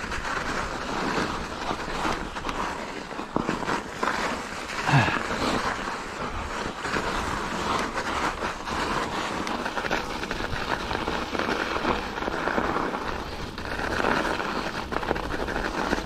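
Mountain bike ridden downhill over a snowy, muddy trail: steady rushing wind noise on the microphone and tyre noise, with frequent knocks and rattles of the bike over bumps.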